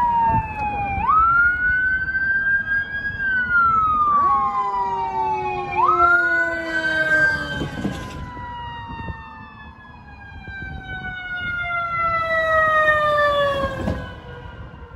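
Emergency vehicle sirens wailing and overlapping. The main tone swoops quickly up about a second in and again about six seconds in, each time sliding slowly back down, then fades near the end.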